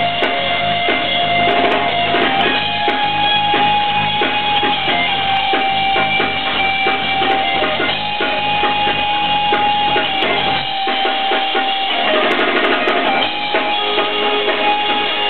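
A live rock band playing amplified music: electric guitar, bass guitar, drum kit and keyboard. The bass and low end drop out about eleven seconds in, leaving guitar and keys.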